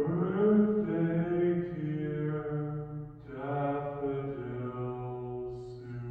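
A deep, slow singing voice drawing out long held notes, like a chant, in two phrases with a short break about three seconds in.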